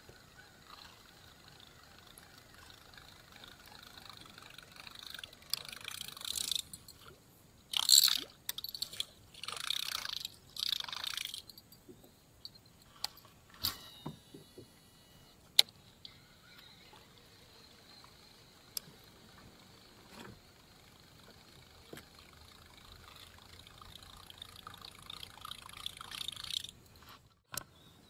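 Water splashing and trickling in several short bursts, then a few sharp clicks and a faint steady hiss that slowly grows.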